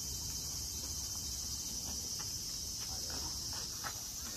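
Chorus of insects: a steady, high-pitched buzzing drone, with a few faint short high notes over it in the second half.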